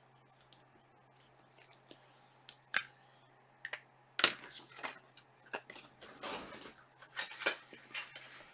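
Trading-card packs and cards being handled at a desk: a series of sharp clicks and taps, the loudest about halfway through, with rustling and tearing of pack wrapping in the second half.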